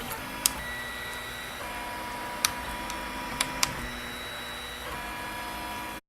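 Printrbot+ 3D printer printing, its stepper motors whining in steady tones that jump in pitch as the print head changes moves, with a few sharp clicks. The sound cuts off suddenly near the end.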